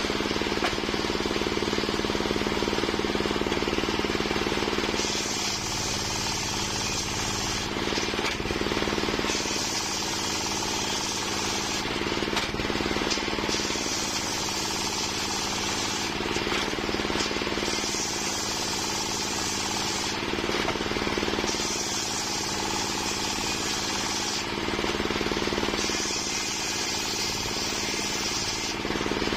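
Homemade engine-driven circular sawmill running steadily, its blade cutting through waru wood in repeated passes: six cuts of about two and a half seconds each, roughly every four seconds, each bringing a high hiss while the machine's low running note dips under load.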